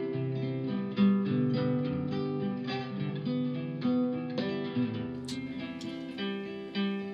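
Background music: an acoustic guitar picking notes one after another.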